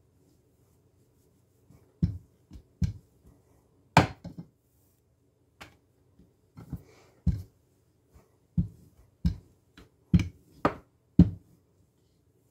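Marble rolling pin knocking against the counter as dough is rolled out and turned: about fifteen sharp, uneven clacks, some in quick pairs, beginning a couple of seconds in.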